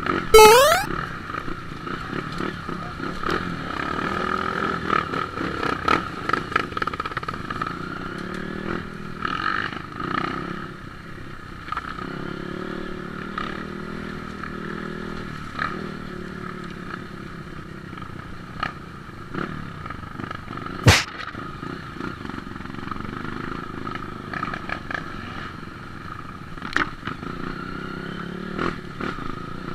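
Dirt bike engine running on a rough trail, with clatter and knocks as the bike works over rocks and ruts. A quick rising sweep sounds right at the start, and a single sharp crack about 21 seconds in.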